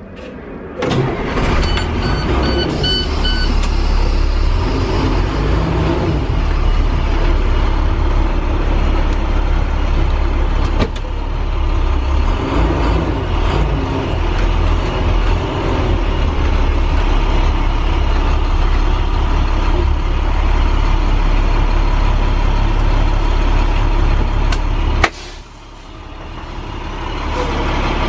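School bus diesel engine running loud, with a short run of high beeps about three seconds in. The engine sound cuts off suddenly near the end.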